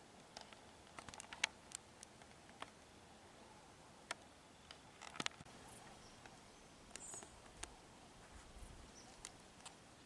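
Near-silent outdoor background broken by scattered faint sharp clicks and ticks, the strongest about a second and a half in and again about five seconds in, with a couple of brief high chirps about seven seconds in.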